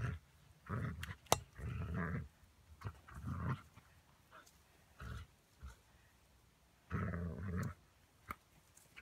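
Dog growling in several short bursts while tugging on a rope toy.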